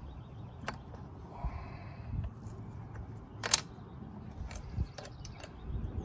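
Irregular light metallic clicks and taps of hand tools and parts while a Tecumseh lawnmower engine's carburetor is being unbolted. The sharpest click comes a little past halfway, with a few more near the end.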